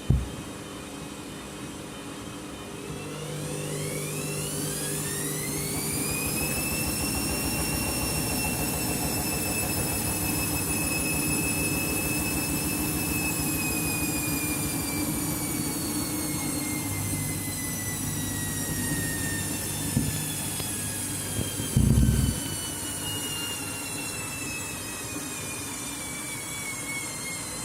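Candy washing machine spinning an out-of-balance load of bedding: the motor and drum whine climbs steeply in pitch as the spin speeds up, holds, then slowly falls away as the drum winds down. Two-thirds of the way through there is a sharp thump, then a heavier knock a moment later.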